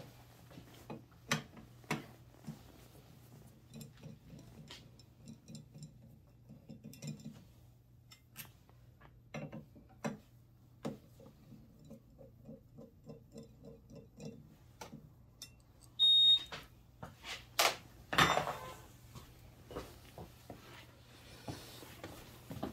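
Hand tools clicking and clinking against metal parts of a stripped-down scooter engine, with a run of small, evenly spaced ticks in the middle as a wrench is turned. About two-thirds through there is a short high ringing tone, then a brief louder clatter of metal.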